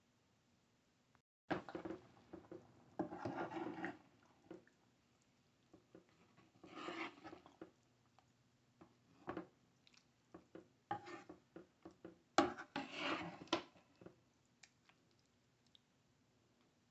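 A spoon stirring and scooping thick chili in a slow-cooker pan: wet squelching and scraping in several short bursts, with sharp knocks of the spoon against the pan, the sharpest about twelve seconds in.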